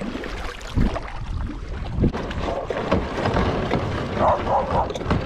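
Wind buffeting the microphone over water splashing and lapping around a kayak as it comes into the shallows, with a few dull knocks from the hull and gear.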